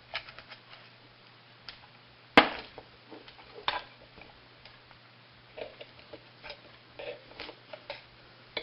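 Scattered small clicks and taps of long-nose pliers and parts being handled in a Honda ATC 110 recoil starter as the cord is pulled out. The sharpest click comes about two and a half seconds in.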